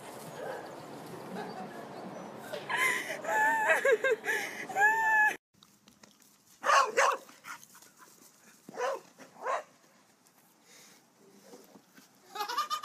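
A run of short, high squeals that bend up and down, cut off suddenly about five seconds in. Then a corgi barks several short times, in two bursts with a pause between them.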